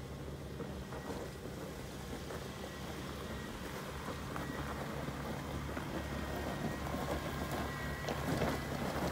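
Jeep Wrangler crawling slowly over loose rock: a low, steady engine hum with the crunch and crackle of stones under the tyres, growing louder as it nears.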